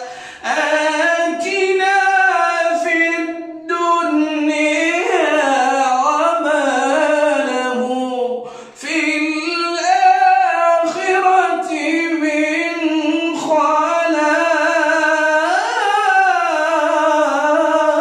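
A man chanting Quranic recitation in a melodic style: long held, ornamented notes that glide up and down in pitch, with brief pauses for breath about four and nine seconds in.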